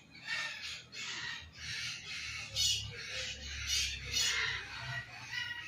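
Birds squawking: a string of harsh calls, about two a second.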